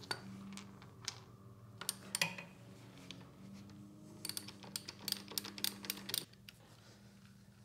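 A ratchet and socket clicking on the oil filter screen cap bolt as it is worked loose: a few sharp clicks in the first couple of seconds, then a quick run of them from about four to six seconds in. A faint low hum runs under the clicks and stops about six seconds in.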